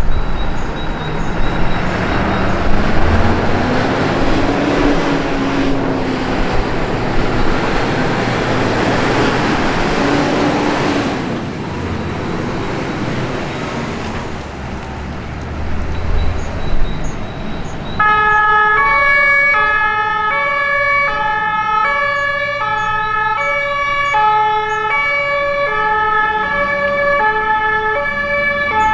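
Vehicle engine and road noise, with an engine's pitch rising and falling. Then, past the halfway point, a German two-tone emergency siren (Martinshorn) switches on and alternates evenly between its two notes.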